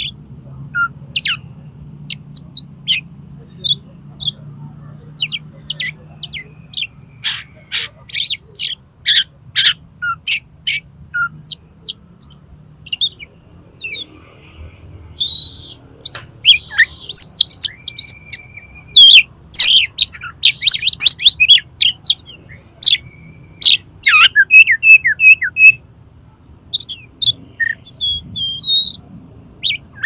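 Oriental magpie-robin (kacer) singing a varied, loud song of sharp whistled notes in quick runs, with a few held whistles and a harsh rasping phrase partway through. The notes come thickest in a rapid flurry a little past the middle. A faint steady low hum lies underneath.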